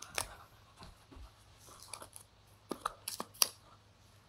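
Cardboard phone box and its packaging being handled as the phone is lifted out of its tray: a sharp click just after the start, then a cluster of clicks and rustles about three seconds in.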